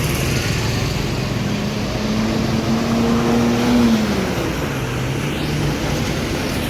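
Bus engine running close by over steady traffic noise, its pitch climbing slightly and then falling away about four seconds in, as a bus pulls past.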